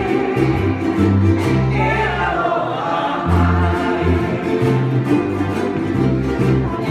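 A live ukulele band plays a Hawaiian song, strumming over a steady bass line, while a group of voices sings along.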